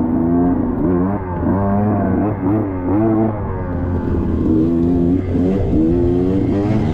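Two-stroke single-cylinder engine of a KTM 125XC dirt bike under way, its pitch rising and falling again and again as the throttle is opened and closed.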